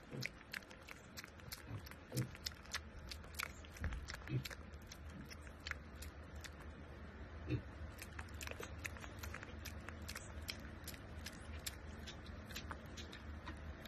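Mini pig chewing and smacking its wet mouth close up: a run of small, irregular clicks over a low steady hum.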